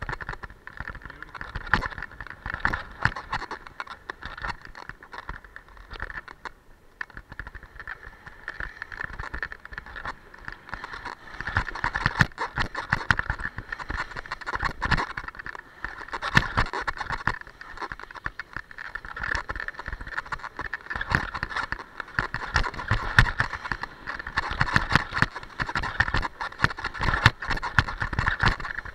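Skis sliding and scraping over hard-packed piste snow as a steady hiss, broken by many sharp clicks and knocks; it grows louder about a third of the way in as the skier picks up speed.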